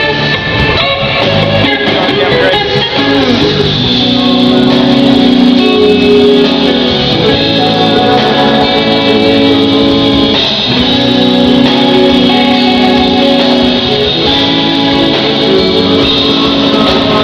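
Live rock band playing at a sound check: electric guitar and bass with drums, long held notes, and some singing.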